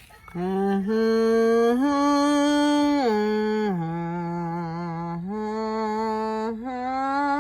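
A person's voice humming a slow tune in long held notes without a break. It steps up twice, drops to a low note about three and a half seconds in, then climbs again.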